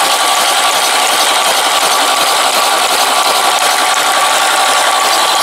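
Starter motor cranking a VAZ 'classic' four-cylinder petrol engine with its spark plugs removed, a steady, even whir with no compression strokes to slow it.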